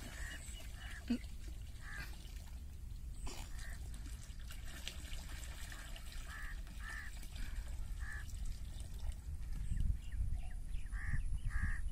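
Crows cawing repeatedly in short calls over the steady splash of water gushing from an irrigation pipe into a pool.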